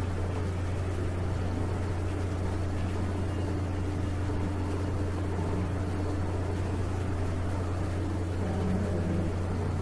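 Steady low hum under an even hiss, with no speech: the recording's background noise.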